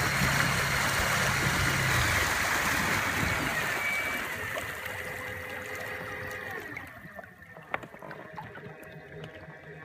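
Water rushing and splashing along the hull of an inflatable boat under way with an electric outboard. The rush dies down over the second half, and a single sharp click comes near the end.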